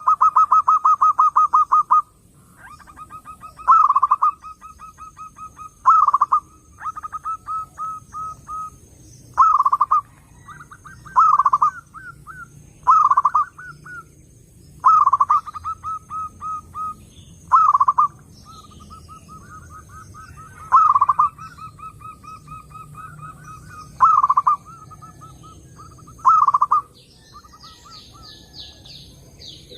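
Zebra dove (perkutut) song: loud cooing phrases repeated every two to three seconds, each opening with a strong coo and running on into a fast string of softer notes.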